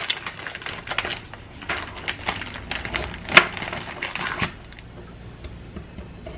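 Rustling and crinkling of a plastic deli-cheese package as slices of Swiss cheese are pulled out and separated, with a sharp click about three and a half seconds in. It goes quieter after about four and a half seconds.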